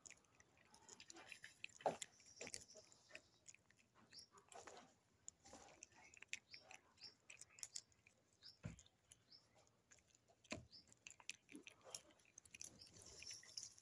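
Domestic cat chewing small dry food pieces, faint irregular crunching clicks.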